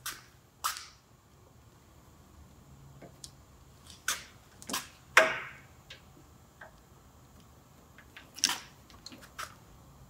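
Irregular sharp clicks and handling noises, about eight in all, the loudest near the middle and late on. They come from a wiring harness and a pair of spreading pliers being handled while a rubber grommet is stretched over the harness sheathing.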